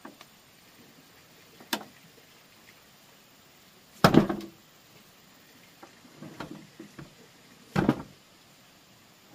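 A few irregular knocks or thuds, the loudest about four seconds in and another strong one near the end, with lighter clatter between them.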